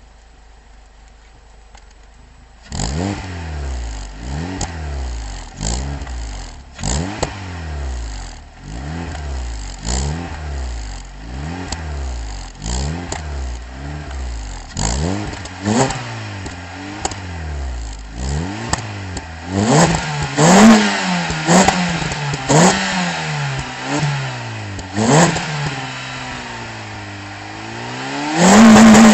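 Peugeot 206 CC's 1.6-litre four-cylinder petrol engine through a Supersprint sport exhaust, coming in loud about three seconds in and blipped in quick revs about once a second. Later the revs go harder and higher, with a long slow climb near the end and a few sharp cracks at the loudest peaks.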